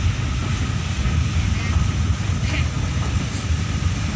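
Steady low rumble of engine and road noise heard from inside the cab of a moving vehicle.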